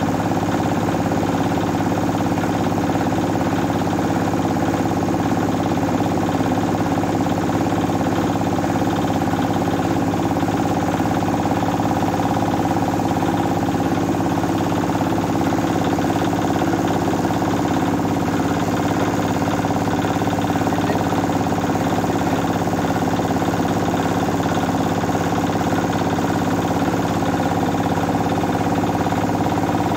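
Old 8 hp diesel engine running steadily, driving a kiskisan rice mill as rice is milled.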